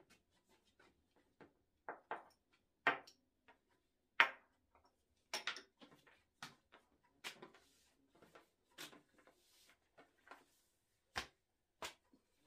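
Thin sheets of hand-rolled baklava dough being lifted, peeled away and bunched up by hand on a wooden table: irregular soft rustles and light taps, with two sharper knocks near the end.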